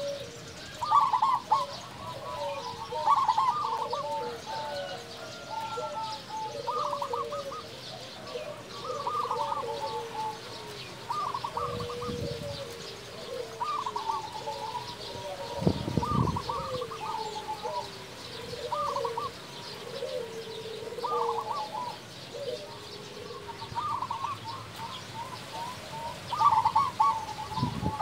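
Zebra dove (perkutut) song: phrase after phrase of quick staccato cooing notes, each phrase ending on a lower note. Faint high chirps of small birds sound behind it, and there are two low thumps near the middle.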